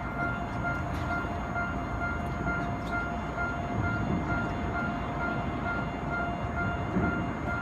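Japanese railway level-crossing warning bell ringing in steady, evenly repeated beats, over the low rumble of a Ginza Line subway train moving across the crossing.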